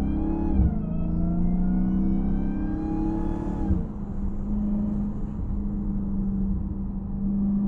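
Dodge Hellcat's supercharged 6.2-litre Hemi V8 accelerating hard, fitted with a Legmaker cold air intake, with supercharger whine over the exhaust. The pitch climbs, falls sharply at a quick upshift about half a second in, climbs again until nearly four seconds in, then drops as the throttle eases, and the engine settles into a steady cruise.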